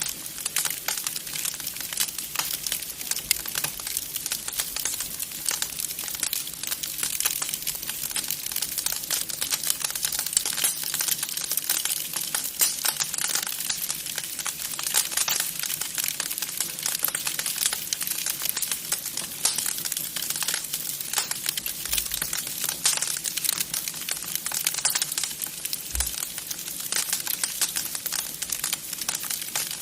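Wood fire crackling in a fireplace: a dense, continuous run of small sharp pops and snaps.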